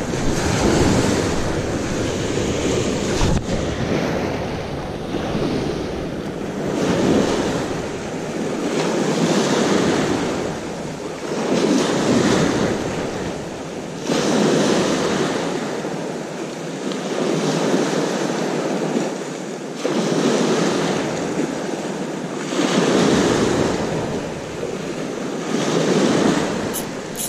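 Small sea waves breaking and washing up a pebbly shore, the surf swelling and falling back every two to three seconds.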